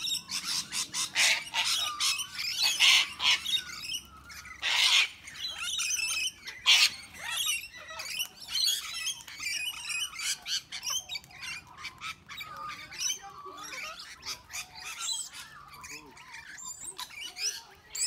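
A feeding flock of parrots squawking, with several loud, harsh screeches in the first seven seconds and quieter scattered calls after that.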